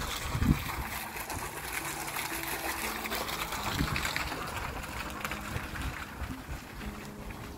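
Steady outdoor rushing noise, with a low thump about half a second in and a softer one near four seconds.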